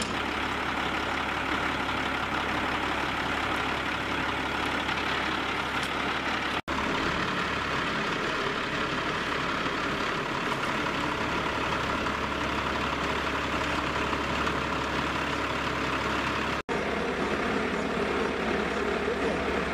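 Heavy crane truck's diesel engine running steadily at idle while it holds the load, with two very brief gaps in the sound.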